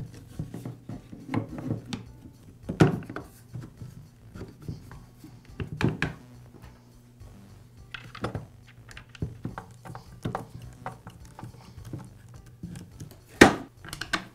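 Plastic knocks and clicks as a chainsaw's top handle is fitted onto its plastic housing: several separate knocks, the loudest near the end, over quiet background music.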